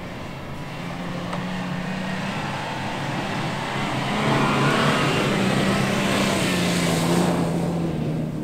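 Toyota Land Cruiser Prado's 4.0-litre V6 petrol engine working under throttle as the SUV slides across soft sand. It gets louder from about four seconds in, with a rushing hiss of spinning tyres and thrown sand.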